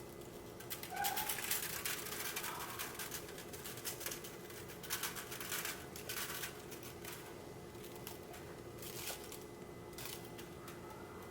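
Seasoning shaker being shaken: spells of rapid rattling taps, loudest about one to three seconds in, again around five to six seconds, and briefly near nine seconds.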